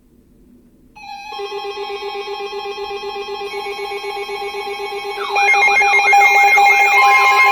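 Electronic alert tones building up in layers: a steady high tone starts about a second in, a pulsing lower tone joins it, and about five seconds in a louder warbling, siren-like sweep comes in on top. It is the alarm sound of a tornado warning broadcast.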